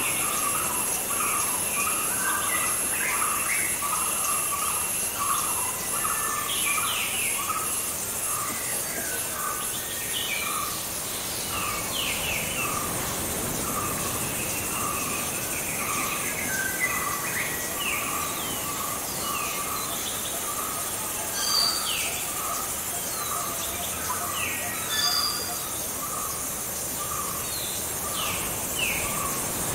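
Tropical jungle ambience with birds calling: short downward-sweeping chirps over a steady run of repeated notes, and a high insect trill. Two louder calls stand out in the second half.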